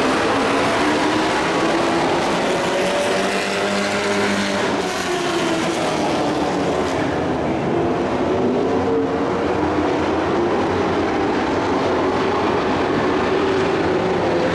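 Several dirt-track race trucks' V8 engines running together around the track, their pitch rising and falling as they accelerate and lift off.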